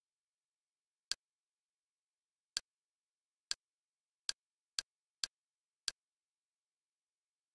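Media-center menu navigation sound effect: seven short, sharp clicks, one each time the highlight steps to another title in the movie list. They are unevenly spaced and come closer together after the first three.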